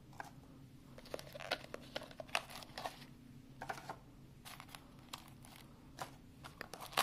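Cardboard smartphone box and its paper inserts being handled: scattered faint rustling and crinkling with light cardboard taps as the tray and packing are lifted out.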